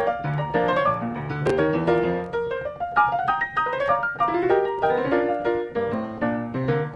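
Piano music, a quick, busy run of notes.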